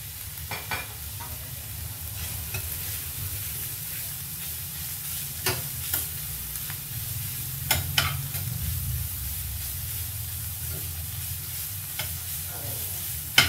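Chorizo and sliced onion sizzling in a stainless steel frying pan while being stirred with a spatula, which knocks and scrapes against the pan several times.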